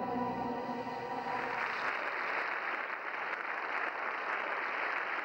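The orchestra's final held chord ends about a second in, and a concert-hall audience breaks into steady applause.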